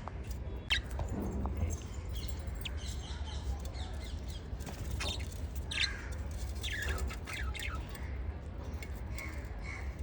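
Small pet parrots chirping and squawking in short, scattered calls, many falling in pitch, over a steady low hum.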